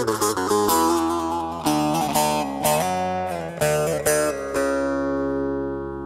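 Instrumental background music led by a plucked string instrument: quick runs of notes, then a long held note that fades near the end.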